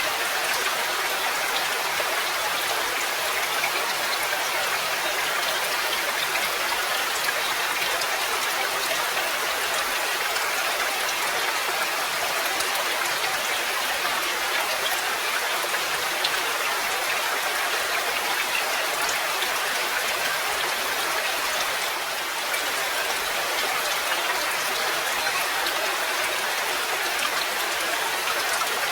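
Steady rain falling: an even hiss dotted with the fine ticks of individual drops.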